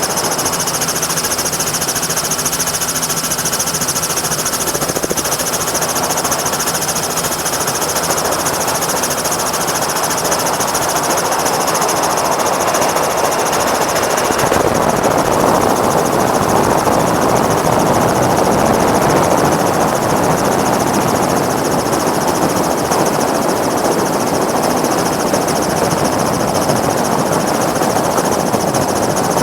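Helicopter running in flight: steady rotor chop under a high turbine whine, growing a little louder about halfway through.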